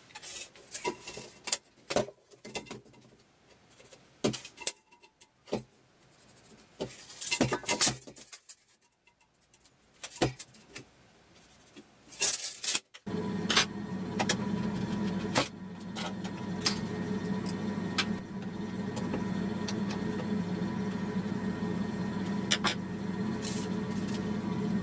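Clicks and light rattles of a steel tape measure being handled. About halfway through, a steady low hum starts abruptly and continues under occasional clicks.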